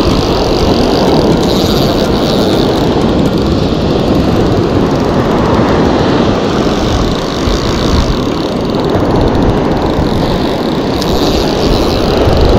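Wind buffeting the microphone as a loud, steady rumble, over the wash of breaking surf.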